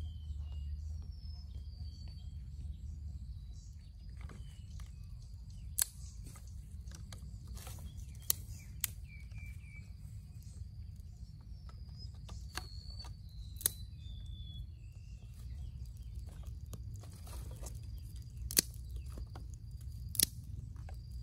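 Birds chirping in short high calls over a steady low rumble, with about six sharp snaps and clicks of dry sticks being laid and broken on a small campfire.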